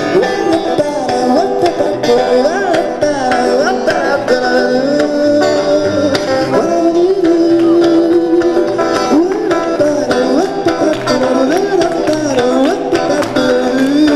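Live rock music instrumental break: an electric guitar plays a lead melody with bending notes over a steady drum and bass accompaniment.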